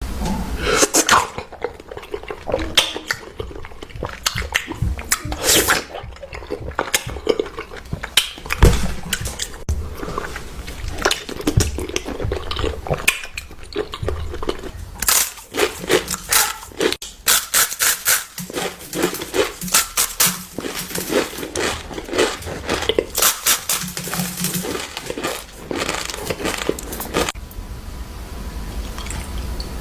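Plastic fidget toys being handled close to the microphone: an irregular stream of clicks, taps and crinkles, busiest in the second half.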